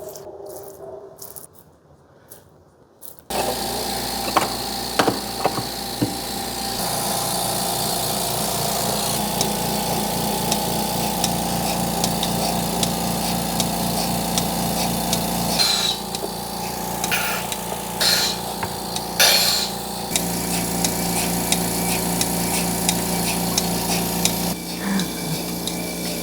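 A milking machine's vacuum pump switches on about three seconds in and runs steadily with a fast, even chugging pulse. There are a few sharp knocks around the middle.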